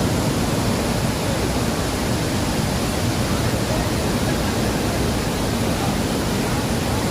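Athirappilly Falls' waterfall rushing: a steady, unbroken roar of falling water.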